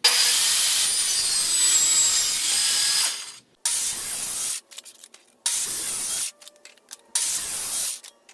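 Table saw cutting a sheet of clear acrylic: loud, high-pitched saw noise for about three seconds, then three shorter bursts of about a second each, cut off abruptly between them.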